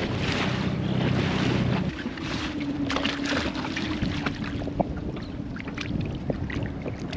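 A small outboard motor on an inflatable dinghy running steadily, then dropping away about two seconds in as the boat slows. Wind on the microphone and water lapping against the hull follow, with a few small knocks and splashes as the anchor line is paid out.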